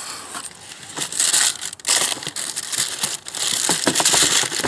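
Shoebox tissue paper crinkling and rustling as it is pulled back from a new pair of Nike Vapormax sneakers, louder from about a second in.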